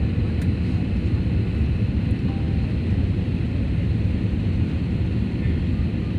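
Airliner cabin noise during the descent before landing: a steady, low rumble of engines and airflow.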